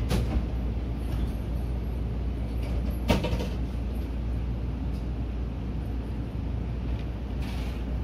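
Steady low hum inside the driver's cab of a Seibu 30000 series electric train, with a sharp click at the start and a louder knock about three seconds in.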